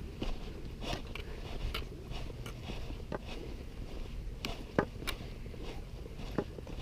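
Hikers' footsteps scuffing and crunching along a road, with irregular sharp clicks and taps, one louder click near the end.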